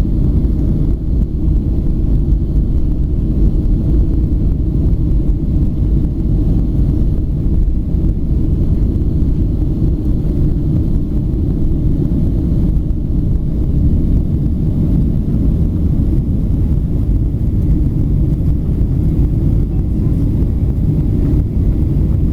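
Steady low drone of a passenger airplane cabin in flight: engine and airflow noise heard from inside the aircraft, unchanging throughout.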